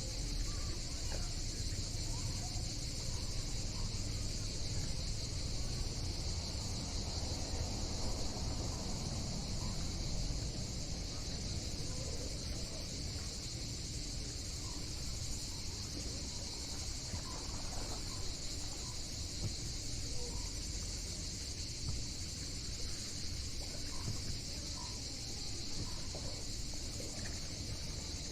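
Cicadas buzzing in a steady, unbroken high chorus over a low, steady rumble.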